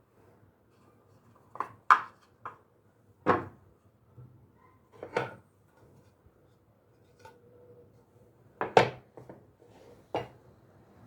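Kitchen items being handled and set down on a hard surface: a series of separate knocks and clacks, the loudest about two seconds in and about nine seconds in.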